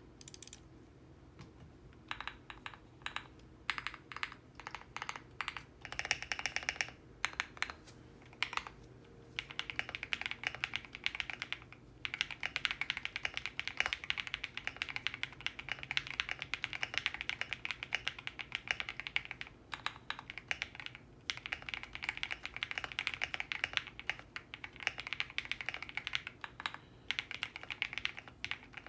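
Typing on a QK65 mechanical keyboard with lubed KTT Kang White linear switches, an FR4 plate and doubleshot PBT keycaps. After about two seconds of quiet come separate key presses a fraction of a second apart, then fast continuous typing from about a third of the way in, broken by a few short pauses.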